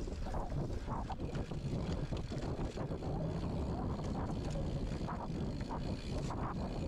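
Muffled, steady wind rumble on a GoPro camera in its protective case while riding a mountain bike along a race trail.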